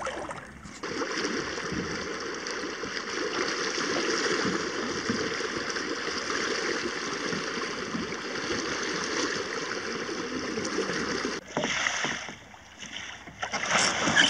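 Steady rush of river water running over a shallow riffle, which drops away suddenly about eleven seconds in; near the end, paddle blades slap and splash the water.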